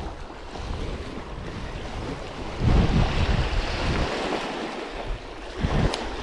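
Gusty wind buffeting the microphone over small waves lapping on a stony lakeshore, the wind gusting hardest about two and a half seconds in.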